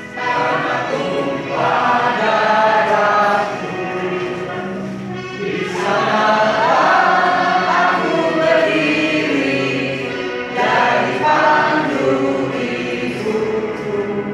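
A mixed group of adults and children singing a song together, in phrases with short breaks between them.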